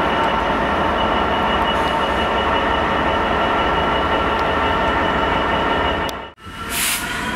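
Class 66 diesel freight locomotive running past at the head of a train of wagons, giving a loud, steady mix of engine and wheel noise with a held whine. Near the end the sound drops out abruptly for a moment, then resumes with a whine that rises in pitch.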